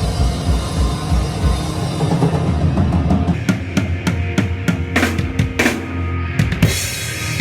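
Punk rock band playing live. After about three seconds of full-band playing the sound thins to a drum break of separate sharp drum hits over a held low bass note, and a cymbal crash comes near the end.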